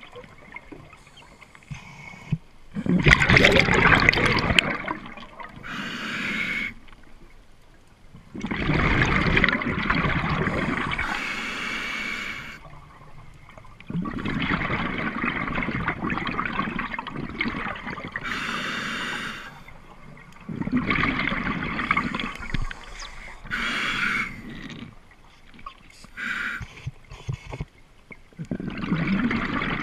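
Underwater scuba breathing through a demand regulator: exhaled air gurgles out as bubble bursts every few seconds, several breaths in a row, with quieter hissing inhalations between them.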